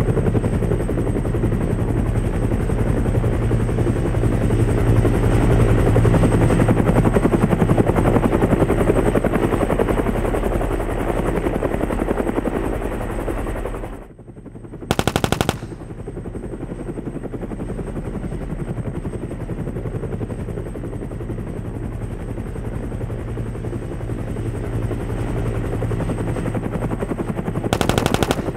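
A toy attack helicopter's electronic sound effects: a steady rotor chopping sound, which drops out briefly about halfway through, then a short burst of machine-gun fire. The rotor sound resumes, and a second burst of gunfire starts near the end.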